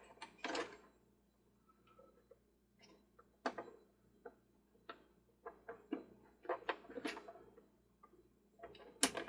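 Scattered small clicks and taps of plastic parts and screws being handled while a toy Ferris wheel's motor armature is fitted back into its housing and screwed in, with a sharper click near the end.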